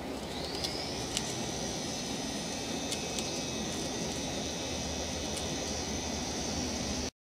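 Electric motors of a remote-controlled caravan mover driving the caravan's wheels: a whine that rises in pitch about half a second in, then holds steady, with a few light clicks.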